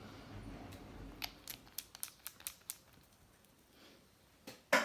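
A quick run of small, light clicks and taps, then one louder click near the end: small gel polish pots and their packaging being handled.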